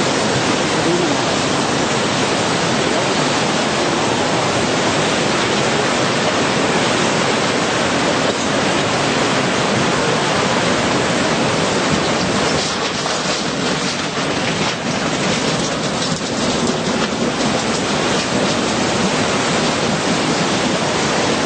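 Tsunami floodwater rushing in a steady, dense roar, with no let-up.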